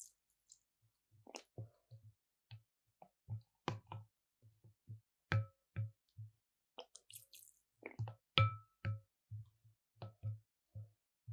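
Plastic spoon stirring a runny slime mixture in a glass bowl: irregular taps and clinks of the spoon against the glass, several a second, each ringing briefly, with soft wet squishing.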